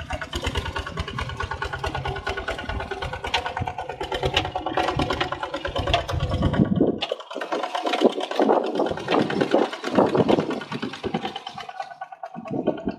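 Kubota ZT155 single-cylinder diesel engine of a walking tractor running under load as it drags a harrow through wet paddy mud, a fast, even chugging. About halfway through, the low chug drops away, leaving a thinner, uneven mechanical sound.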